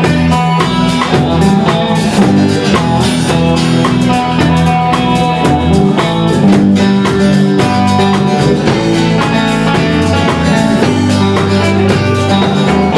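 A rock band playing live: guitars and a drum kit in a steady instrumental intro.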